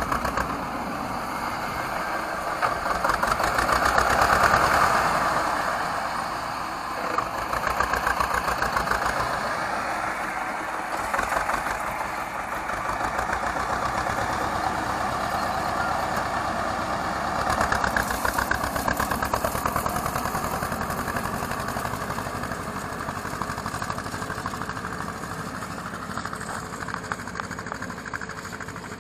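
Homemade mini tractor's engine running steadily as it drives across a hayfield pulling a wheel rake, getting quieter near the end as it moves away.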